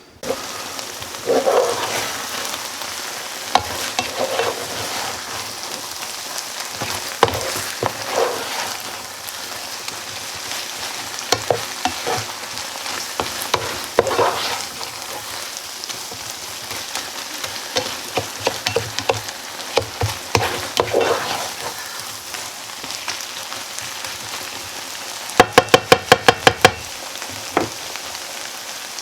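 Fajita chicken skillet meal with corn and black beans sizzling steadily in a skillet while being stirred, with scattered scrapes and clicks. A quick run of sharp taps comes near the end.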